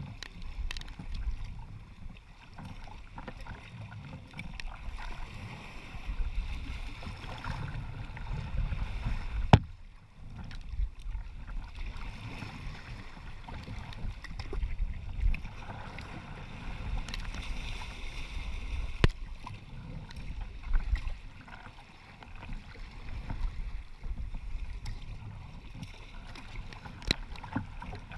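Wind noise on the microphone over the splash and rush of choppy waves along a sea kayak's hull as it surfs downwind, with scattered sharp knocks, one loud one about nine seconds in.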